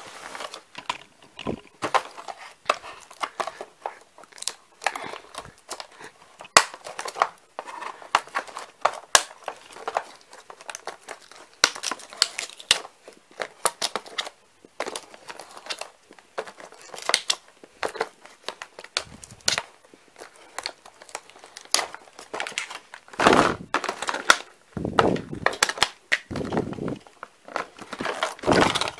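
Cardboard packaging being cut with scissors and handled: many scattered sharp snips and clicks, then louder stretches of crinkling and tearing in the last several seconds.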